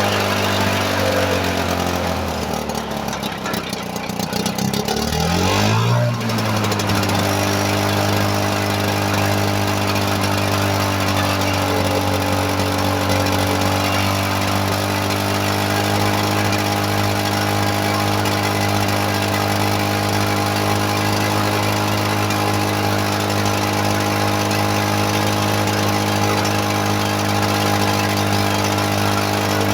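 Retro Lawn-Boy two-stroke mower engine running. It bogs down soon after the start, its pitch sinking as if about to stall, then picks back up around five or six seconds in and runs steadily at speed.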